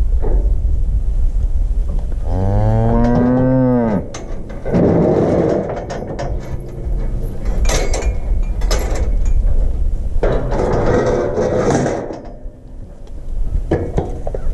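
Calf held in the headgate of a cattle chute bawling: a drawn-out moo that rises and falls about two seconds in, then two hoarser, louder bawls around five and eleven seconds, with a couple of sharp knocks in between, over a steady low rumble.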